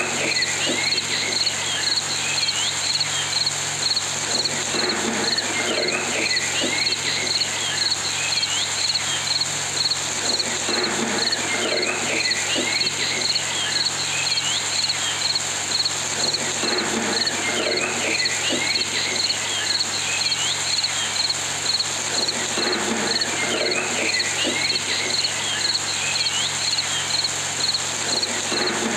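Looped nature ambience: steady insect chirping with a regular pulsing high note and short chirps over it, the whole pattern repeating about every six seconds.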